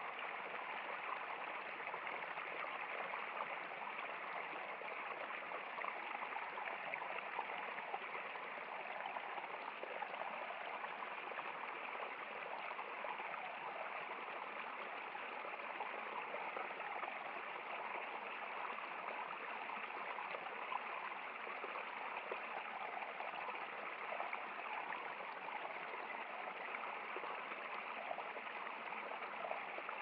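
Shallow stream flowing and trickling steadily over rocks, an even rushing-water sound with no change throughout.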